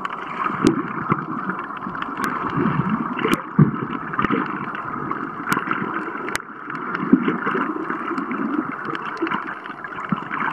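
Underwater ambience heard through a submerged camera: a steady, muffled wash of moving water, with scattered sharp clicks every second or two.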